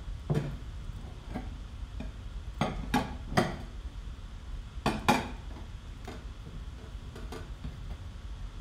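Irregular light taps and clicks, about ten, bunched in two clusters a third of the way in and midway, over a steady low hum.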